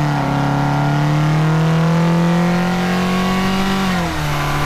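2012 Mazda3's 2.0 L Skyactiv four-cylinder at full throttle in second gear, heard from inside the cabin, with the AEM cold air intake's induction noise as it revs; the pitch rises steadily. About four seconds in the pitch drops at the upshift into third, then the engine pulls on.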